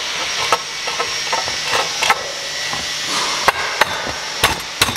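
Sheet-metal baffle being pressed and seated into an aluminium oil sump pan: a run of sharp metal clicks and knocks, the loudest near the end, over a steady hiss.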